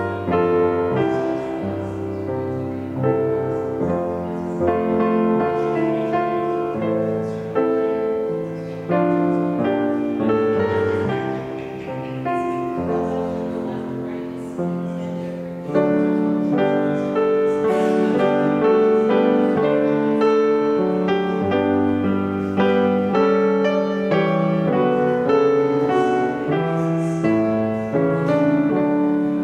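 Solo piano music: a slow piece of chords and melody, each note struck and left to ring and fade.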